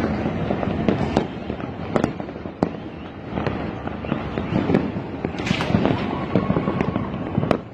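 Fireworks and firecrackers going off all over a city: a dense, continuous crackle of pops and bangs with a few sharper, louder cracks, and a brief hiss about five and a half seconds in.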